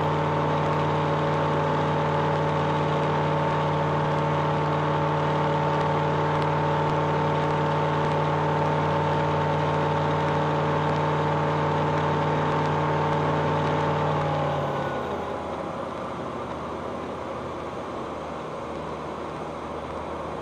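Flight Design CTSW's Rotax four-cylinder engine and propeller droning steadily, heard inside the cockpit. About fourteen seconds in, the engine tone falls away and the sound quietens to a lower rush of noise.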